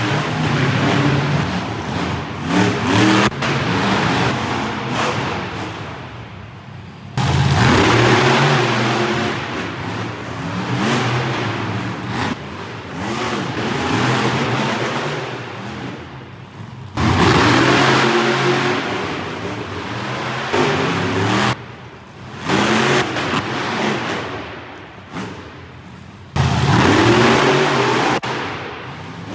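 Monster truck engines revving and running hard, their pitch rising and falling as the trucks drive and jump. The loudness jumps suddenly several times as one clip cuts to the next.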